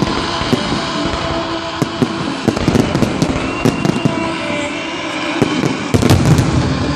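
Aerial fireworks shells bursting one after another in a string of sharp bangs and crackling pops, with a denser, louder volley of bangs about six seconds in.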